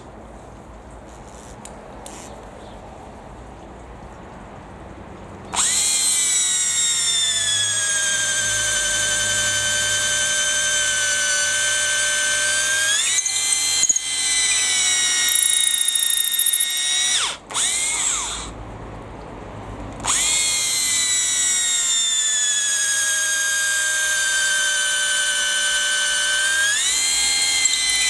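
Makita 36-volt cordless drill boring with a long auger bit: a motor whine starts about five seconds in, drops in pitch as it takes the load and holds steady. After a few short stops and restarts midway it bores again, and the whine rises in pitch near the end as the load comes off.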